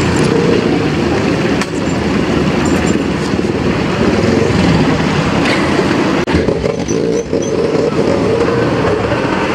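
Steady loud rumble of street traffic, with a brief dip a little after six seconds.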